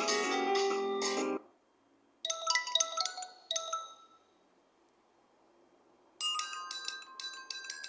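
ZTE Blade L8 phone ringtones played one after another. A fuller melodic tune cuts off about a second and a half in. After a pause comes a short bell-like melody, and near the end, after another pause, a new ringtone of quick high chime notes begins.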